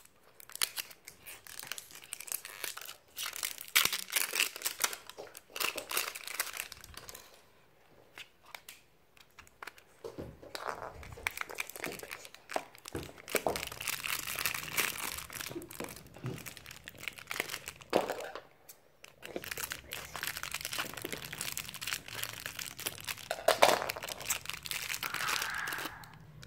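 Crinkly plastic wrappers from an L.O.L. Surprise toy ball being crumpled and torn open by hand, in crackling stretches with two brief pauses.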